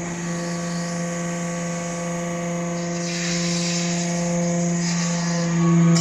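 Hydraulic metal-chip briquetting press running: a steady pump-and-motor hum, with a hiss that swells about halfway through, then grows louder just before the end.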